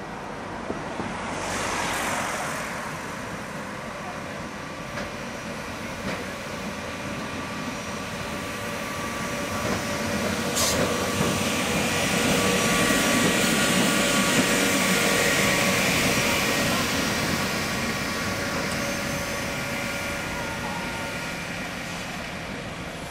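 Bex–Villars–Bretaye electric tram railcar running along its street track, a steady mechanical noise with a thin whine over it. It grows louder as it passes close, a little past halfway, then fades as it moves off; a single sharp click sounds about ten seconds in.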